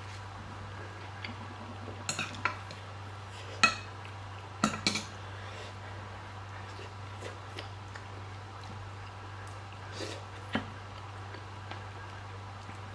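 Tableware clinking during a meal: a handful of sharp taps and clinks of dishes and cutlery, bunched between about two and five seconds in with the loudest near four seconds, and another pair around ten seconds in, over a steady low hum.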